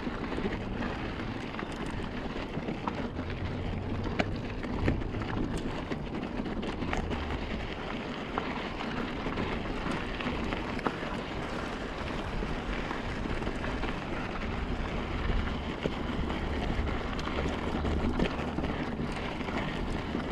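Mountain bike rolling over a rocky dirt double-track, its tyres running on loose gravel and the bike giving frequent small clicks and rattles. Steady wind noise on the microphone runs underneath.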